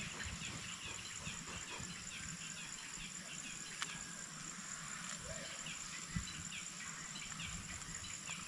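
Outdoor insect chorus: a steady high, continuous trill of crickets or cicadas, with many short chirps repeating over it and a couple of faint knocks.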